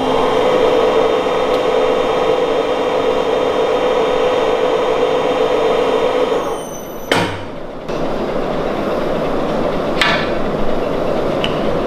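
Nargesa electric tube bender running under power as it bends a 1-inch steel tube, a steady mechanical hum with a whine. The hum stops with a sharp clunk about seven seconds in. The machine then runs again with a rougher, noisier sound and a knock about ten seconds in.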